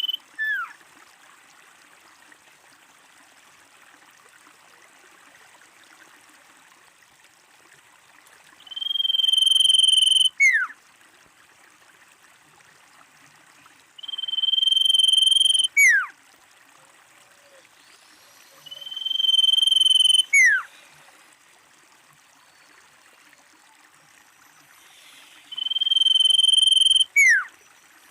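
Common iora singing the same phrase four times, about five to six seconds apart: a long steady whistle that swells over about two seconds, then a quick downward-slurred note. The end of one more phrase falls at the very start, over a faint steady hiss.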